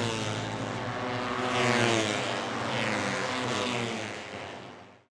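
Racing motorcycle engines passing at speed, their pitch sweeping down as they go by, then fading out near the end.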